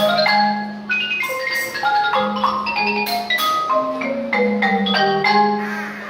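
Live music played on tuned mallet percussion: quick struck, ringing notes over held lower notes. The phrase fades out near the end, as the piece closes.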